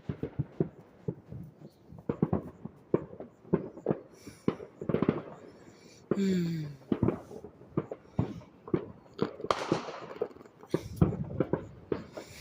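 Fireworks going off: a rapid, irregular run of sharp pops and cracks, bunching into denser crackling volleys about two, five and ten seconds in.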